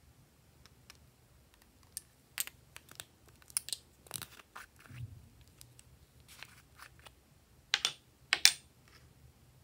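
Small plastic slime containers handled and twisted open: scattered plastic clicks and taps, with two louder sharp clicks close together near the end.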